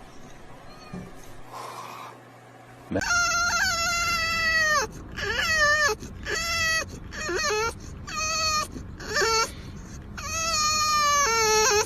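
A pet animal crying out in a run of high, drawn-out calls: the first comes about three seconds in and lasts nearly two seconds, then several shorter ones follow, and another long one comes near the end.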